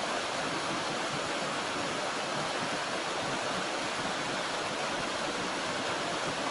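Waterfall water rushing steadily, an even hiss without change.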